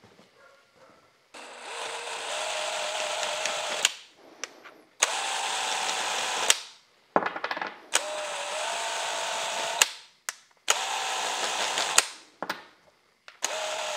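Cordless drill with a deburring tool, run in five short bursts of one to two and a half seconds while the flash is cleaned from the holes of small metal washers held by hand. The motor gives a steady whine, and there are sharp clicks between bursts.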